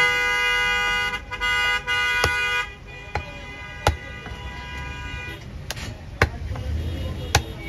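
A meat cleaver chopping mutton on a round wooden chopping block, about six sharp chops. A horn toots with a steady tone through the first couple of seconds, breaking briefly about a second in.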